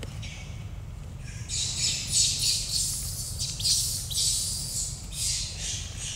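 Baby macaque screeching in a run of harsh, high squeals. They start faint, turn loud about a second and a half in, and come in several bouts until near the end.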